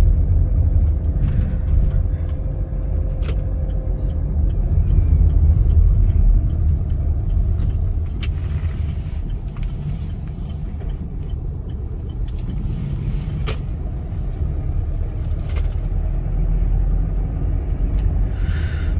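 Volkswagen Vento being driven at city speed, heard from inside the cabin: steady low engine and road rumble, with a few faint sharp clicks.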